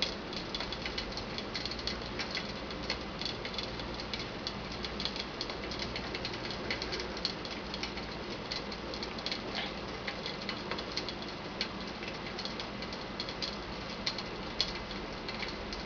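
Water boiling rapidly inside an aluminum soda can on an electric stove's coil burner: a steady hiss with many small, irregular clicks and crackles, as the steam drives the air out of the can.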